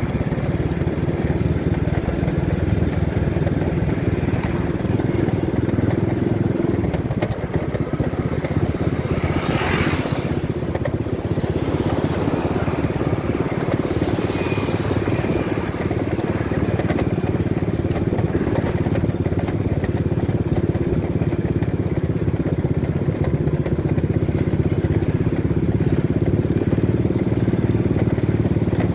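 Motorcycle engine running steadily while riding, with road and wind noise; a brief rush of noise about ten seconds in.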